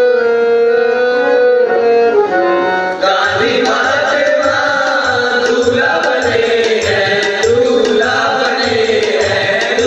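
Indian wedding music played over a sound system. A long held note opens it, and about three seconds in a steady drum beat of about two beats a second comes in under a melody.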